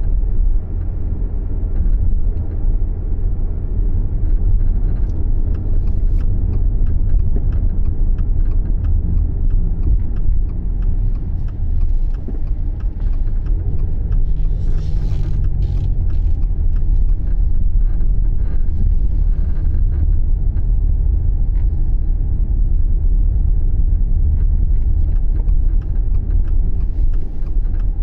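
Subaru Levorg being driven: a steady, loud low rumble with scattered light ticks and clicks, recorded as the car's abnormal noise while driving.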